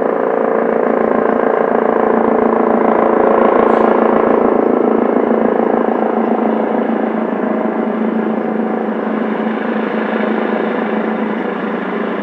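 Police helicopter flying over, its rotor beating in a rapid low pulse as it passes closest about three to five seconds in, then slowly fading as it draws away.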